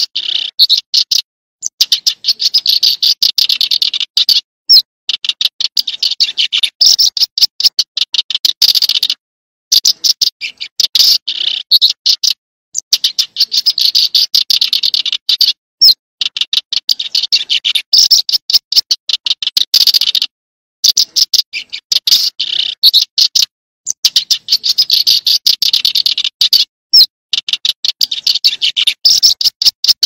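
A small songbird singing: rapid runs of high, dry chirping notes in phrases of two to three seconds, repeated over and over with short breaks between.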